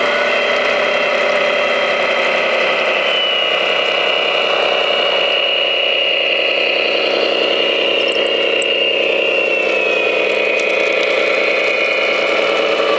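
Radio-controlled scale model MAN TGX tipper truck running at a crawl: a steady mechanical, engine-like hum with a high whine that steps up in pitch a few seconds in and eases down later.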